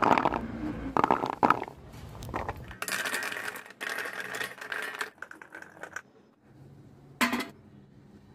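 Small, firm star gooseberries rattling and clattering as handfuls are dropped into a stainless steel colander, with a dense run of clatter lasting about three seconds in the middle. Shorter bursts of rattling come at the start and once near the end.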